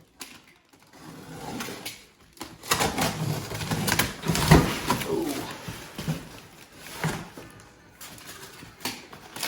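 Rustling and knocking of heavy bumper parts being unpacked and handled, a busy run of knocks with the loudest about halfway through.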